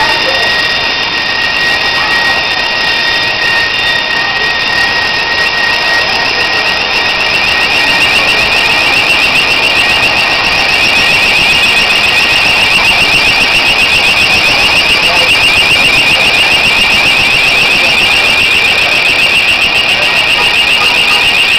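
Fire alarm sounding continuously: a loud, high-pitched electronic tone that turns into a rapid warble about halfway through.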